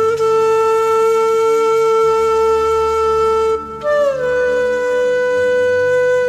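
Background music: a wind instrument holds one long note over a low sustained drone. The note breaks off about three and a half seconds in, then a second note starts a little higher, bends down and holds.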